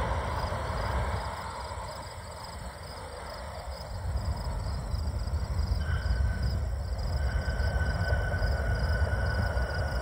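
Jet noise from a landed Airbus A320 fades over the first two seconds, giving way to a fluctuating low rumble. Insects chirp throughout in quick, evenly repeated high ticks, and a faint steady high whine joins about six seconds in.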